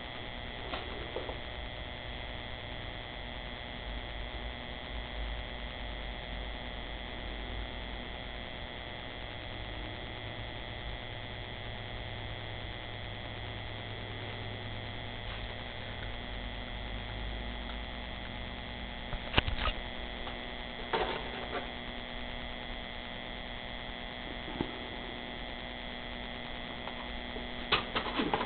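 Steady electrical hum with thin high whining tones over it. A few short clicks and knocks come about two-thirds of the way in and again near the end.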